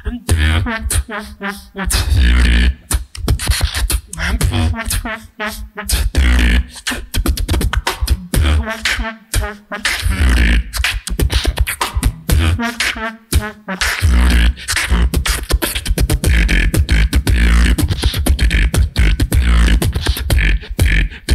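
Solo beatboxer performing a routine: deep bass kicks, sharp snare and hi-hat strokes, and every few seconds a stretch of wavering pitched vocal sound.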